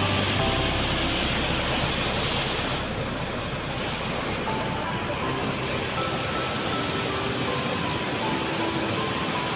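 Floodwater pouring through a dam's open spillway gates: a steady roar of churning water.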